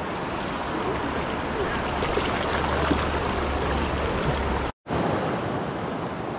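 Fast river water rushing over rocks close to the microphone, a steady rush of noise with a low rumble underneath for most of it. The sound cuts out for a split second a little under five seconds in.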